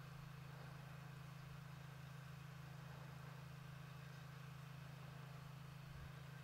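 Faint steady low hum, otherwise near silence.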